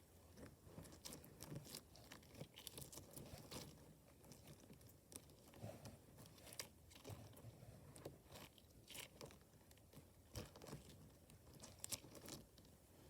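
Faint, irregular crackling and rustling of a water snake fidget toy, a slippery liquid-filled plastic tube, being handled and squeezed in the hands.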